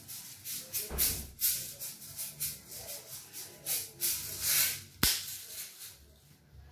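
Small shaker container of silver sugar pearls rattled in repeated short shakes as the pearls are sprinkled over a glazed cake, with one sharp click about five seconds in.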